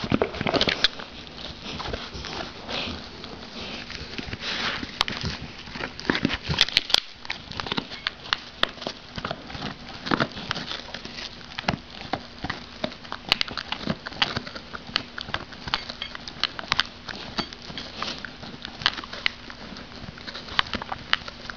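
Bouvier des Flandres dog chewing and gnawing a dental chew bone close to the microphone: a continuous, irregular run of clicks and crunches of teeth on the bone.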